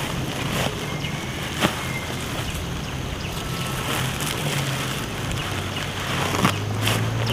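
Woven plastic sack and bunched green onions rustling and crinkling as they are pressed and packed by hand, with a sharp crackle about one and a half seconds in and another near the end. A steady low hum runs underneath and grows a little stronger near the end.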